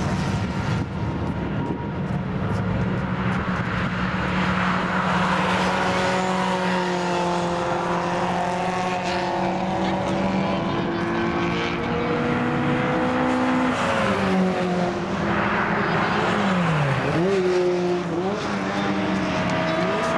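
Classic racing cars' engines at speed on a circuit. A revving engine note climbs steadily for several seconds, falls sharply about two-thirds of the way through, then dips and climbs again with gear changes as a car comes down the straight near the end.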